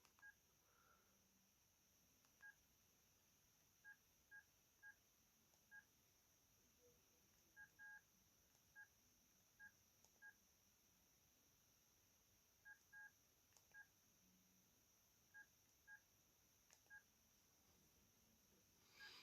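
Sony Ericsson T610 keypad beeps: short, faint beeps, all at the same pitch, at irregular intervals and sometimes in quick pairs, as the phone's menus are stepped through.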